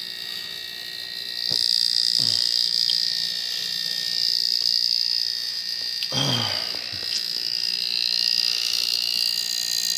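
Stun gun high-voltage module running, a steady high-pitched electrical whine that gets louder about a second in, as it drives a glow discharge in an evacuated mason jar. A short falling sound comes about six seconds in, with a fainter one near two seconds.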